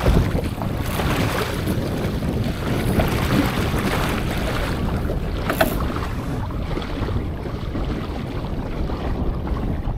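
Wind buffeting the microphone over the wash of water along the hull of a Laser (ILCA) sailing dinghy under way.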